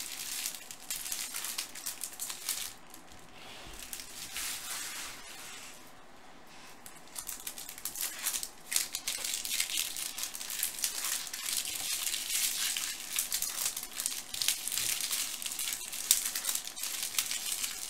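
Foil wrappers of 2016 Topps Chrome card packs crinkling and tearing as they are ripped open by hand, a dense crackle of small clicks that eases off for a few seconds after the start and picks up again near the middle.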